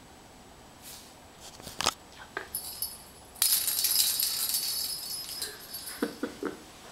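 A small bell jingling for about two seconds, high and bright, after a few light clicks and knocks.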